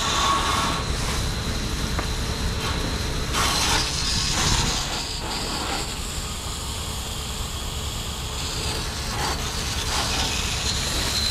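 Fire hose spraying a steady stream of water onto smouldering ground: a constant hiss over a low rumble.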